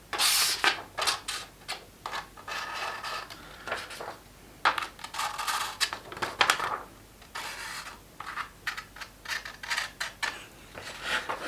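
Handling noises of a knife and a plastic-bodied knife sharpener: an irregular run of short scrapes, rubs and clicks, with two longer rasping scrapes about two and five seconds in.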